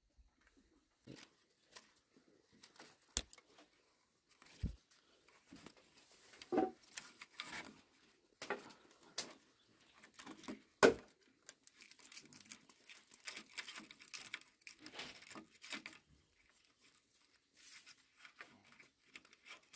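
Hands lashing bamboo poles together with a thin green strip: irregular rustling and scraping as the strip is pulled and wound, with a few sharp knocks of bamboo, the loudest about eleven seconds in.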